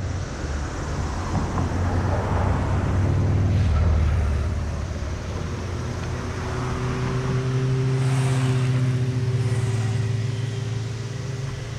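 Motor vehicle engines passing close by on a road: a low engine hum that swells about four seconds in and again around eight seconds, with a steady low drone through the second half.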